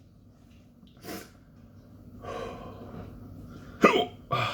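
A man hiccuping and breathing heavily, the hiccups brought on by the burn of a superhot chili pepper. There is a short sharp hiccup about a second in and a long breath out, then two quick, louder catches of the voice near the end.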